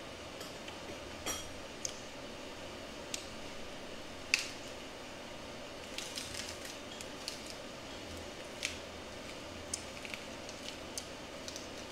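Fresh lettuce and herb leaves handled and folded by hand: scattered small crinkles and clicks, the sharpest about four seconds in, over steady background noise.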